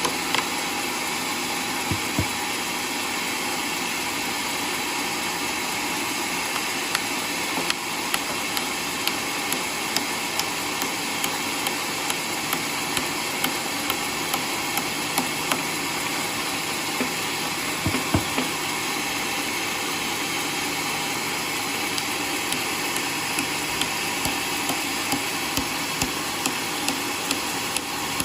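Homemade sawmill running steadily, with a short sharp tick repeating roughly every second.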